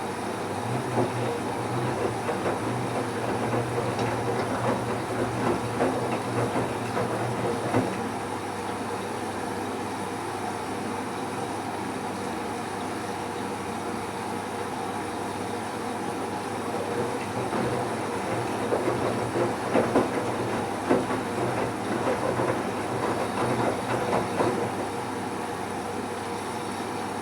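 Bauknecht Super Eco 7615 washing machine in its wash phase: the drum turns for several seconds with wet towels tumbling and sloshing over a low motor hum, eases off, then turns again about halfway through.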